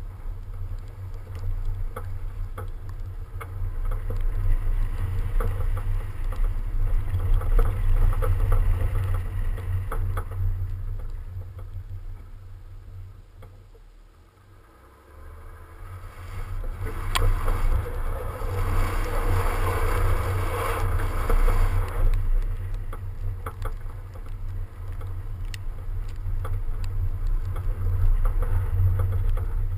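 BMW 335d driving on snow, with strong low wind buffeting on an outside-mounted microphone over tyre and road noise. About halfway through the noise drops away briefly, then a louder rushing hiss runs for several seconds before settling back.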